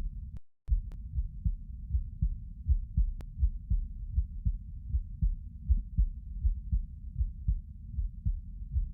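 A person's heartbeat heard close up through the chest: a steady rhythm of low, muffled thuds, about two a second, with a brief dropout just after the start.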